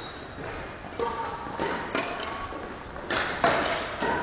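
Badminton rally: rackets striking the shuttlecock in several sharp hits that echo around the sports hall, with a brief high squeak of shoes on the hall floor.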